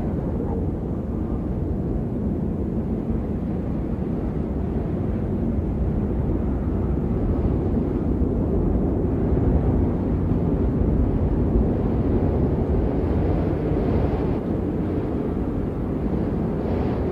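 Strong wind buffeting the microphone: a steady, deep rumble with no distinct events.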